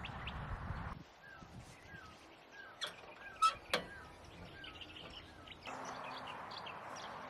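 A bird calling a short hooked chirp over and over, about twice a second, with a few sharper, louder calls in the middle. A steady outdoor hiss sits before and after the calls.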